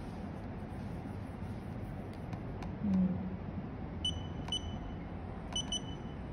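Short high electronic beeps from an LCD screen tester during a touch test of a replacement Redmi 12C screen: single beeps about four and four and a half seconds in, then a quick run of three. A brief low hum sounds about three seconds in, over faint clicks and a steady background hum.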